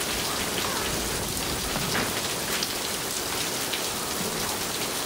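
Hailstorm: hail and rain falling steadily, a dense even hiss of countless small ticks.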